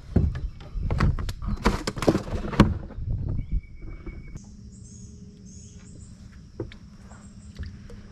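Knocks and clatter of a cooler lid and gear being handled on a boat deck, loudest and busiest in the first three seconds. After that it falls quieter, with a few faint high chirps.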